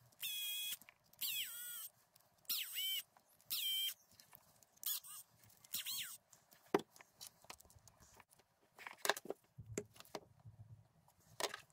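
Cordless electric screwdriver running in six short bursts of about half a second each, its motor whine dropping in pitch each time as it drives a screw into an aluminium RC portal housing. After that come a few light clicks and clatters of small parts being handled.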